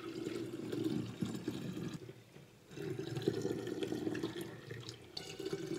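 Homemade lemonade poured from a jug through a funnel into a glass swing-top bottle, the liquid running and splashing as the bottle fills. The stream breaks off briefly about two seconds in, then resumes.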